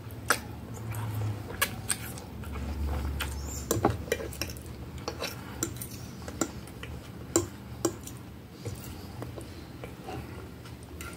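A person eating spaghetti: chewing, with irregular wet mouth clicks and a metal fork tapping and scraping on a plate.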